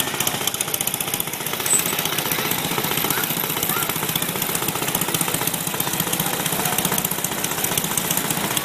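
Small antique tractor's engine running with a rapid, even exhaust beat as the tractor drives off.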